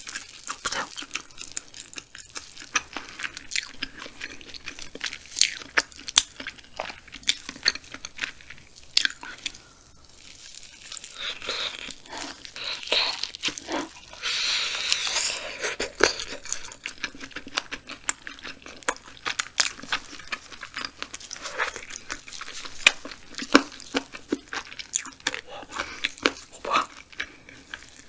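Close-miked eating of grilled frog: the frog is pulled apart by hand, then bitten and chewed, with many short crunching and chewing clicks.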